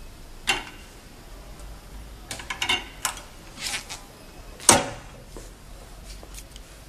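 Mechanical clicks and knocks of a manual heat transfer press as its heat platen head is moved over the lower plate and its handle worked, the loudest knock about two thirds of the way through.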